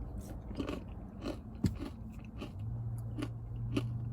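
A person chewing a mouthful of acai bowl close to the microphone: irregular soft crunches and wet mouth clicks. A low steady hum comes in about two and a half seconds in.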